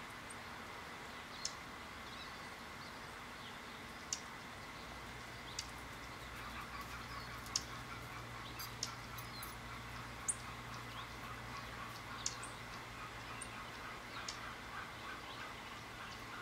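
Short, thin, high bird call notes, one every second or two, over a steady background hiss; a low hum comes in about five seconds in.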